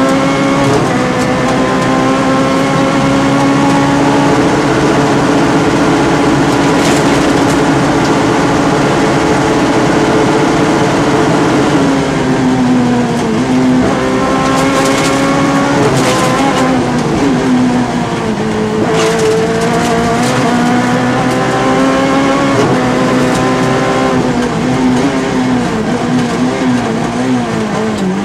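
Volkswagen Golf 3 Maxi rally car's engine at full throttle, heard from inside the cockpit. The engine pitch climbs steadily and then drops at each gear change, several times over, with quicker drops and wobbles near the end as the car slows.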